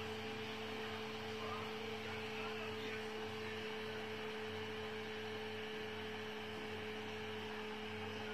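A steady hum with a faint even hiss: the last of the steam escaping from an aluminium pressure cooker's weighted valve, propped open with a spoon to release the pressure.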